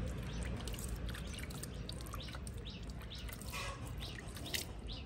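Small birds chirping repeatedly, with faint dripping and splashing of water as a hand scoops bathwater from a plastic basin.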